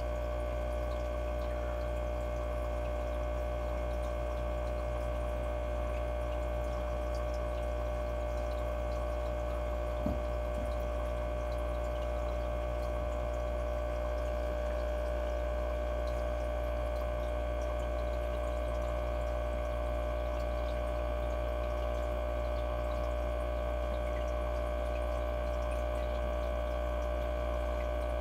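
Aquarium filter running: a steady motor hum with water trickling, and one faint knock about ten seconds in.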